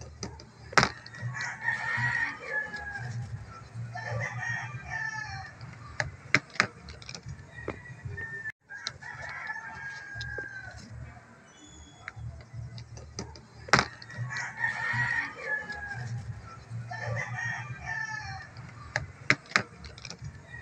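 Chickens clucking and a rooster crowing, with a few sharp clicks scattered through.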